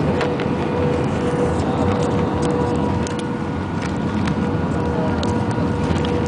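Airbus A319 cabin noise on the approach to landing: a steady rumble of engines and airflow with a constant hum. Small clicks or rattles come through now and then.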